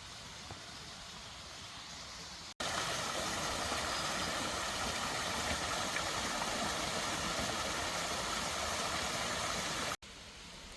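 Mountain stream water rushing over rocks, a steady rush. After a cut about two and a half seconds in it is much louder and fuller, then drops back after another cut near the end.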